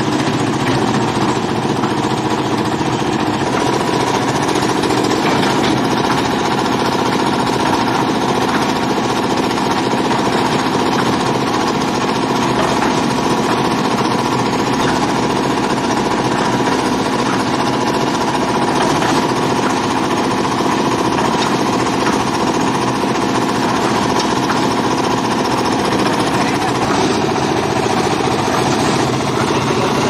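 Engine of a 2-in-1 concrete mixer with lift attachment running steadily with a fast, knocking beat while it drives the hoist.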